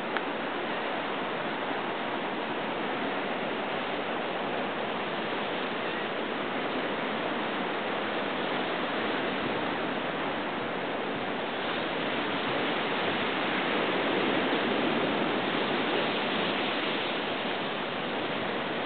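Surf washing steadily over the rocks of an ocean shore: an even rushing noise with no separate wave breaks, swelling a little louder about two-thirds of the way through.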